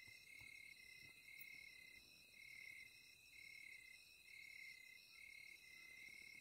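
Faint trilling of night insects: one steady high trill and a lower one that pulses on and off about once a second.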